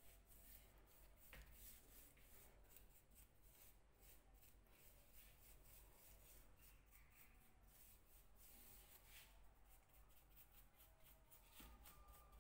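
Faint brushing: a bristle paintbrush stroking dark finish onto a carved wooden table leg, in many short, irregular strokes.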